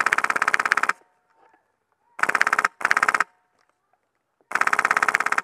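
Polarstar HPA-converted A&K M249 airsoft light machine gun firing full-auto bursts of rapid, even shots. There are four bursts: one of about a second at the start, two short ones close together two to three seconds in, and one of about a second near the end.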